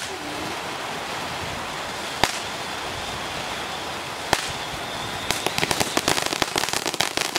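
Two ground fountain fireworks spraying sparks with a steady hiss, with two sharp pops about two and four seconds in, then dense rapid crackling from about five seconds in.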